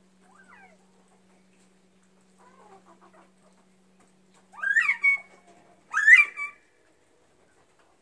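Quail in a hutch calling: faint chirps, then two loud calls about a second apart near the middle. Each loud call sweeps quickly upward and ends on a short held note.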